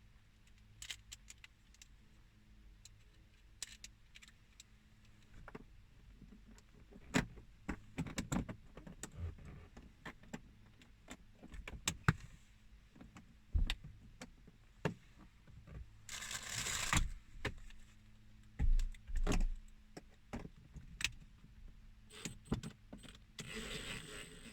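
Scattered clicks, taps and small rattles of hand tools, fasteners and plastic trim being handled, with a short scraping noise lasting about a second around sixteen seconds in and a few dull thuds soon after.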